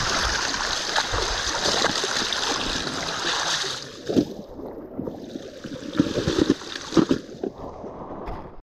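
Water splashing and running in a shallow stream as a person scoops and splashes it over a muddy caving suit to wash it clean. About four seconds in it drops to a quieter background with several dull knocks and thumps, then cuts off suddenly near the end.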